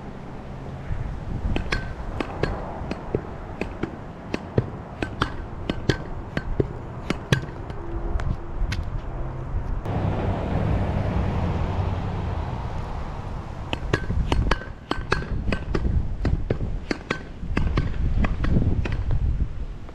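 Vurtego V3 pneumatic pogo stick bouncing on pavement: runs of sharp metallic clanks, each with a brief ring, about two a second, with a pause of a few seconds in the middle. Wind rumbles on the microphone throughout and gusts during the pause.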